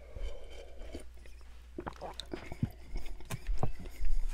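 Creamy soup drunk straight from a large glass bowl: gulping at the start, then a scatter of wet mouth clicks and swallows.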